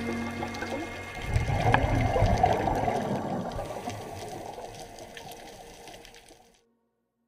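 Underwater bubbling and rumble of a scuba diver's exhaled air from the regulator, heard through an underwater camera housing; it starts about a second in, fades slowly, and cuts off suddenly near the end.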